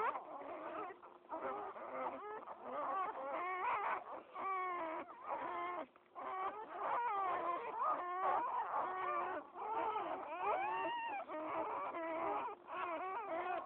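A litter of newborn pit bull puppies squealing and whimpering, many thin, wavering cries overlapping almost without a break.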